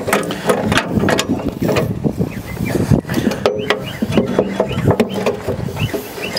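Irregular metallic clanks and rattles from an excavator's sheet-metal engine cover and its latch as they are handled by hand.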